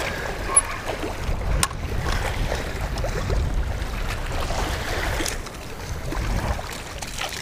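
Wind buffeting the microphone in a steady low rumble, with a few faint clicks of handling.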